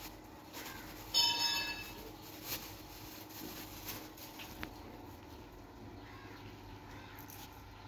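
A bird gives one short, harsh call about a second in. A few faint clicks follow over a steady outdoor background.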